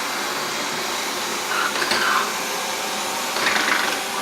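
Xiaomi Mi robot vacuum cleaner running steadily, its suction motor and brushes making a continuous whooshing hiss, with two brief louder swells, about two seconds in and near the end.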